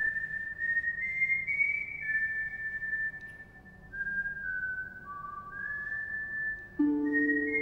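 Music: a slow, high whistled melody of long held notes moving stepwise, with lower held instrumental notes joining near the end.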